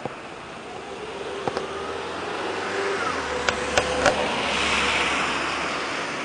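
A motor vehicle passing: a steady rushing sound that swells to a peak about five seconds in and then eases off. A few sharp clicks sound around the middle.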